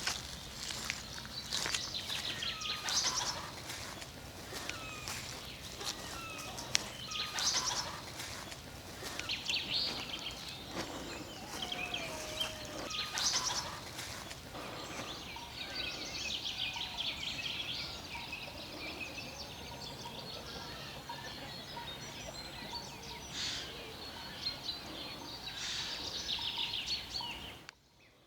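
Outdoor birdsong: several birds chirping and singing at once in overlapping trills and whistled notes. It cuts off abruptly near the end.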